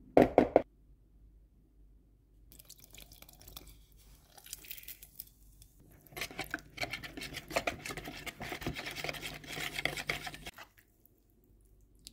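A short, loud clatter at the very start. Then a fork whisks a wet yogurt-and-egg spice marinade in a bowl: rapid clicking and scraping against the bowl, heaviest from about six to ten seconds in, stopping shortly before the end.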